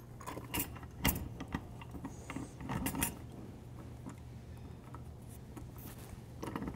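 Irregular metal clinks and small knocks as the handle shaft and its bearing are fitted back into an API coupler body, with sharper clicks about a second in and again near three seconds.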